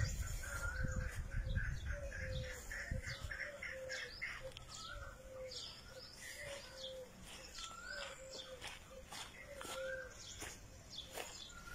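Birds chirping and calling: a run of short low notes about twice a second alongside higher, quick rising-and-falling chirps. A low rumble underneath fades out about three seconds in.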